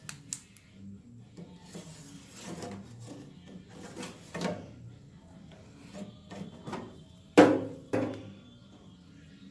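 Workshop handling noises: scraping and rubbing with scattered knocks as parts and tools are moved about, ending in two louder knocks close together near the end.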